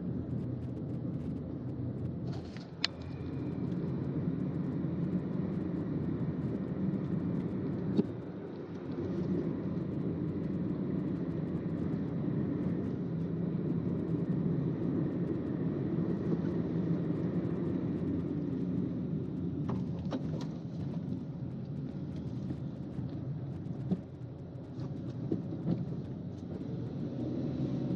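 Steady rumble of a car driving along a road, tyre and engine noise heard from inside the cabin. A couple of brief sharp clicks stand out, about 3 and 8 seconds in.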